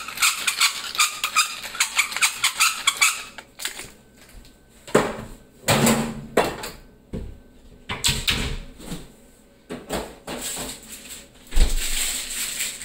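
Wooden pepper mill grinding in quick clicking turns for about the first three seconds. After that come scattered knocks and handling sounds, with a sharp thump a little before the end.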